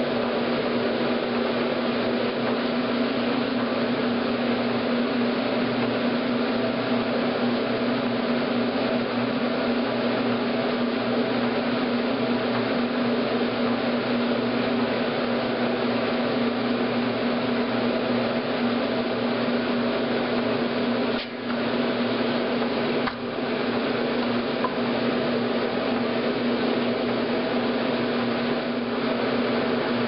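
1963 Maytag A700 top-loading washer agitating a full tub of water and clothes: a steady motor and gearbox hum with water churning, dipping briefly twice about two-thirds of the way through.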